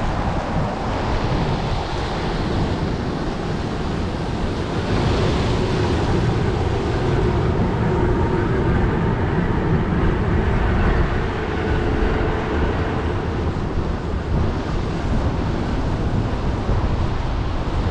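Wind buffeting the microphone in heavy rain, with Blackpool's illuminated boat tram passing on the promenade tramway. The noise swells a little around the middle as the tram goes by, with a faint steady hum.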